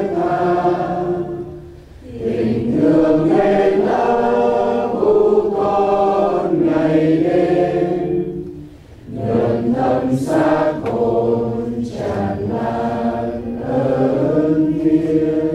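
A congregation singing a Vietnamese hymn to the Holy Spirit together, on long held notes, with two brief breaks for breath about two seconds and about nine seconds in.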